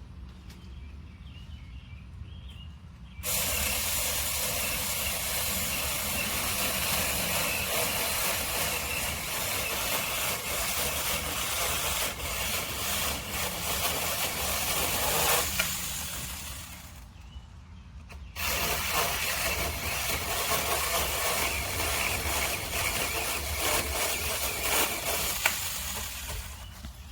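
Saker 6-inch cordless electric mini chainsaw running in two long runs. It starts abruptly about three seconds in and runs for about twelve seconds, dies away, then starts abruptly again a couple of seconds later and runs until near the end.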